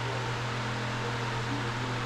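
A steady low hum under an even hiss, unchanging, with no knocks or clicks.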